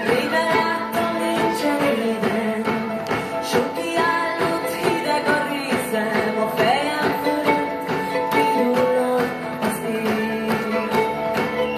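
Live band with a string orchestra playing a song: held string chords over a steady beat, with electric guitars.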